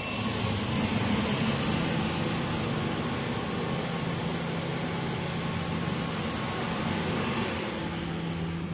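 The CO2 laser cutter's auxiliary units (centrifugal exhaust blower, water chiller and air pump), just switched on and running steadily: an even rushing fan noise with a low hum.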